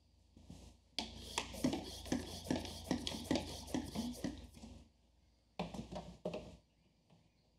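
Hand-held mister spraying water into the Rio pump's inlet in quick short spurts, to reprime the pump and drive the air out of its chamber. A fast run of spurts goes on for about four seconds, then two or three more follow after a short pause.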